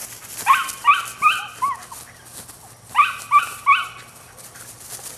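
Nine-week-old Belgian Malinois puppy barking in high-pitched yips: a run of four quick yips, then about a second later a run of three more.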